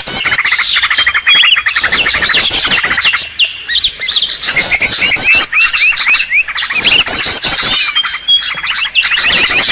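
Green leafbirds (cucak ijo) calling noisily and agitatedly: a dense, unbroken stream of quick chirps and whistles, with a burst of very fast, high trilled notes every two to three seconds.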